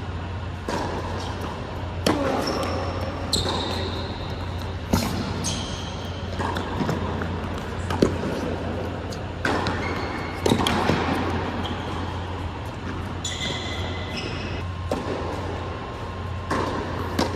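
Tennis rally on an indoor hard court: racket strikes and ball bounces every second or two, echoing in the hall, with short high squeaks of court shoes as the players change direction. A steady low hum runs underneath.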